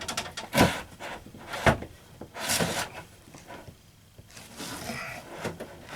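Handling noises in a cramped crawlspace: two sharp knocks about half a second and a second and a half in, then a longer scraping rustle, quieter towards the end.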